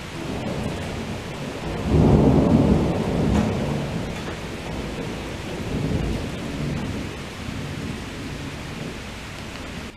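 Thunder rumbling over steady rain: a loud roll builds about two seconds in, swells again near the middle, then fades away toward the end.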